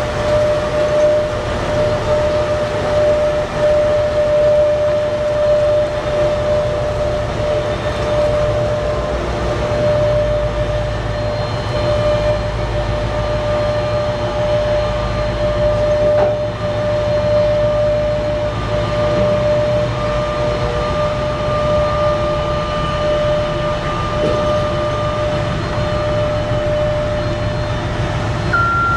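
BelAZ 75710 mining dump truck, driven by two MTU 16-cylinder diesel engines with electric drive, running past under load: a deep steady rumble with a steady whine over it. Near the end a reversing alarm starts beeping.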